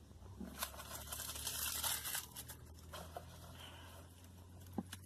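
Paper or plastic wrapping crinkling and rustling for about two seconds, followed by a few light clicks.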